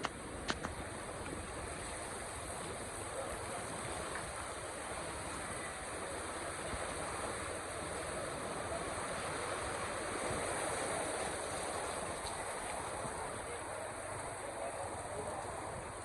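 Steady rain falling, an even hiss of water, with two sharp clicks about half a second in.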